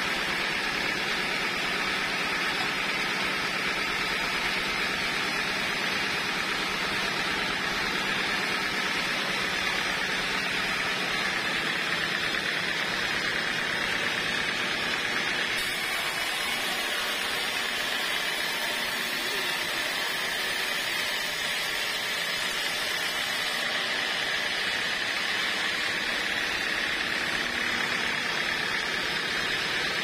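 Band sawmill running, its blade ripping lengthwise through a teak log, a steady, even machine noise.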